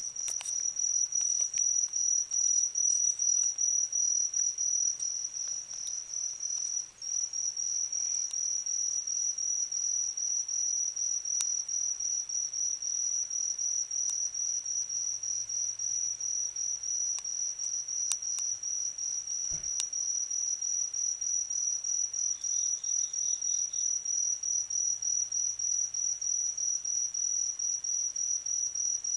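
Autumn insect singing a continuous high-pitched pulsed trill, with a brief break about seven seconds in. A second, fainter and lower trill joins for a moment about three-quarters of the way through.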